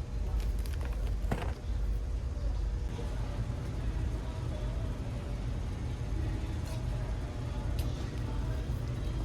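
Steady low rumble of a car in motion, with a few faint clicks about a second in.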